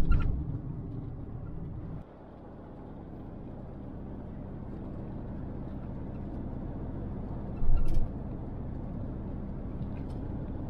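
Camper van driving on the road: a steady low rumble of engine and road noise. It drops suddenly about two seconds in, then slowly builds again. A brief loud thump comes near eight seconds.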